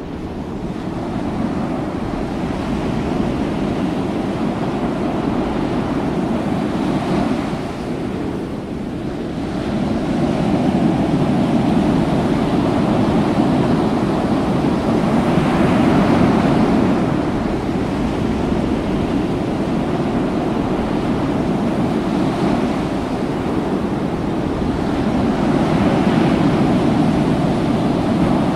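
Open sea washing against and into a ship's open hull opening, the noise swelling and ebbing in slow surges, with wind buffeting the microphone. Near the end a wave pours in over the deck edge.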